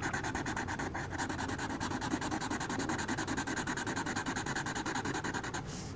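Sharpie marker tip scratching over drawing paper in quick back-and-forth colouring strokes, filling in an area with colour. The scratching stops shortly before the end.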